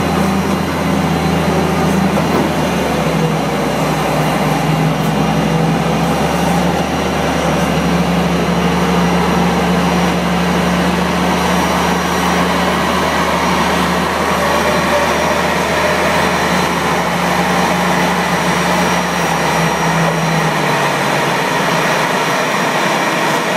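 Pushback tug's engine running under load with a steady low hum, over the constant rush and high whine of the Airbus A340-300's turbines. Near the end the tug's engine hum drops away while the turbine noise goes on.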